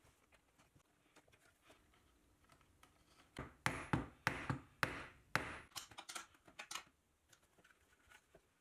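Plywood bike parts and small metal hardware being handled on a wooden workbench: faint rustling, then a quick run of sharp knocks and clicks from about three to seven seconds in.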